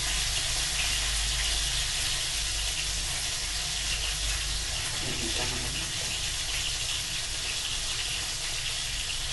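Steady hiss with a low rumble underneath that fades out about five seconds in.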